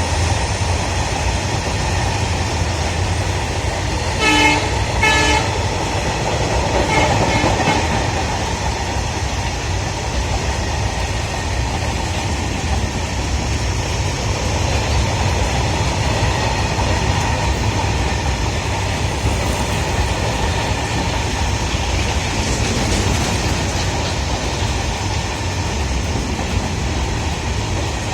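Freight wagons behind a WDG-4 diesel locomotive rolling past, a steady rumble and clatter of wheels on rail. The locomotive's horn gives two short blasts about four and five seconds in.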